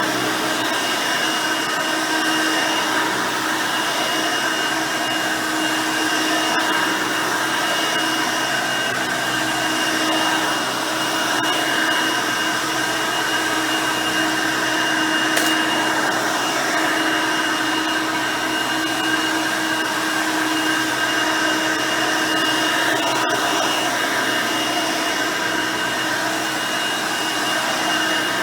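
Hoover Elite High Performance upright vacuum, with its 5-amp motor and 9-blade fan, running steadily while vacuuming: a constant motor whine over rushing airflow. There is one light click about halfway through.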